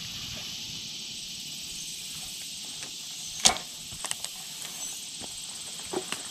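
Steady high-pitched drone of insects in summer woods. A sharp click about halfway through and a few lighter clicks after come from a spinning fishing reel being handled.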